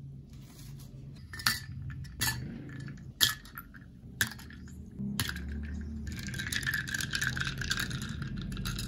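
Ice cubes dropped one at a time into a glass mug, five sharp clinks about a second apart. Then a metal spoon stirs the ice, making a fast, steady run of clinking against the glass near the end.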